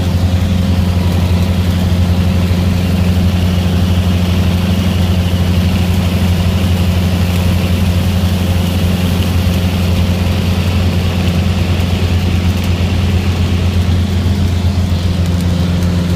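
Cessna 150's Continental O-200 four-cylinder engine and propeller droning steadily in flight, heard from inside the cabin.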